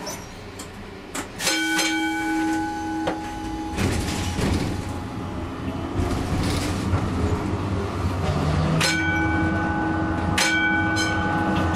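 Comeng A-class tram's gong struck about a second and a half in and rung again near the end, with a few quick re-strikes, each time ringing on with a steady bell tone. Under it is the tram's low running rumble, which grows from about four seconds in.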